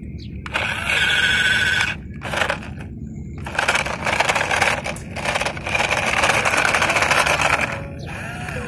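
Small electric drive motor and gearbox of a toy RC dump truck whining as it drives in four stop-start bursts, the longest about two seconds.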